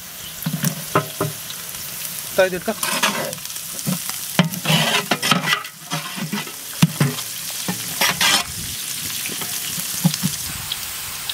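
Sliced onions, mint, coriander and green chillies sizzling in hot oil in a large metal cooking pot, the sizzle rising as the greens go in. A metal ladle scrapes and knocks against the pot as the mixture is stirred.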